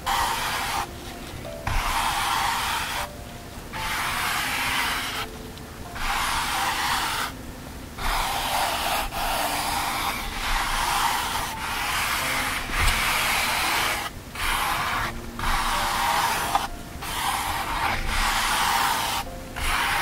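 Sheer sleeve fabric rubbing against a foam-covered microphone in repeated strokes of a second or two, with brief pauses between them.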